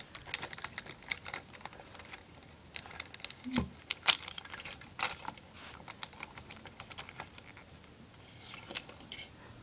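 Hard plastic parts of a Transformers action figure clicking and rattling as they are handled, a string of irregular light clicks with a few sharper ones.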